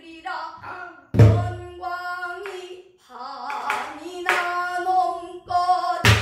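Female voice singing a Korean danga in Namdo sori style, long bending held notes, accompanied by a buk barrel drum. There are sharp drum strokes about a second in and again near the end, with lighter strokes between.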